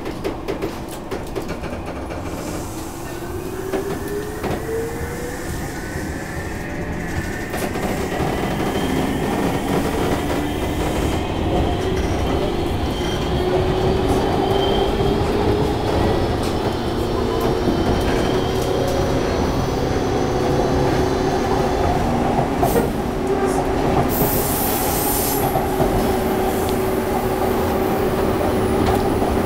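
201 series electric train heard from inside the passenger car as it pulls away, its chopper-controlled traction motors whining and rising in pitch as it gathers speed, then running on at a steadier pitch with wheel and track noise growing louder. A high wheel squeal joins in near the end.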